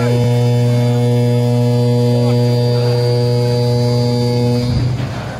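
A ship's horn sounding one long, steady low blast, which stops shortly before the end, giving way to a rushing noise.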